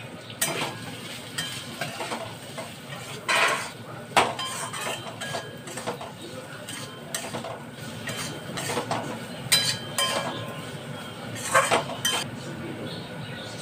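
Metal spatula scraping and knocking against a metal kadhai as diced potatoes coated in dry spices are stirred and turned over. The strokes come irregularly, loudest about three to four seconds in and again around ten to twelve seconds.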